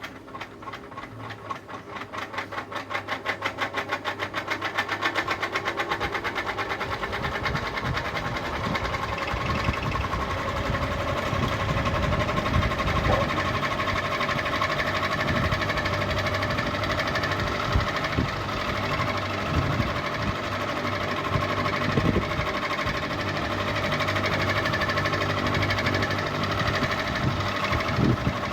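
Ceiling fan starting up: a rhythmic beat that quickens and grows louder over the first several seconds as the blades come up to speed, then a steady mechanical whir with irregular low thumps.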